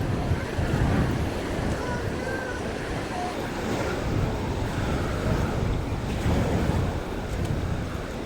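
Waves washing onto a sandy beach in a steady surging wash, with wind buffeting the microphone.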